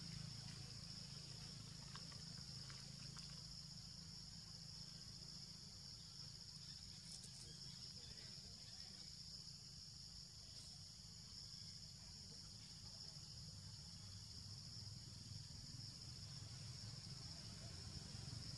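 Faint, steady high-pitched drone of insects, with a low rumble underneath.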